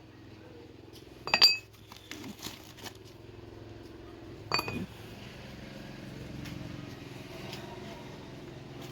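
Metal parts struck together twice, each clink ringing briefly, with a few lighter knocks between them, over a steady low hum.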